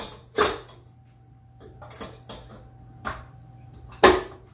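Knocks and metallic clicks from handling a stand mixer and its steel mixing bowl as it is set up, a few separate strikes with the loudest near the end.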